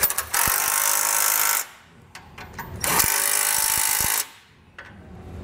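Cordless impact wrench run in two bursts of about a second and a half each, snugging down base plate mounting bolts that are to be brought to full torque later with a torque wrench.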